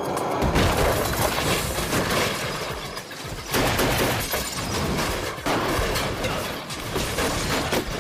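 Action-film sound effects: a dense, continuous barrage of gunfire with things shattering and breaking around it.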